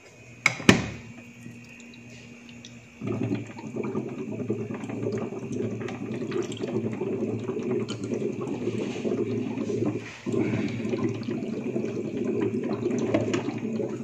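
A couple of sharp knocks just under a second in. From about three seconds in, water runs steadily from the tap of a Kyowa hot-and-cold water dispenser into a plastic cup, breaking off briefly about ten seconds in before running on.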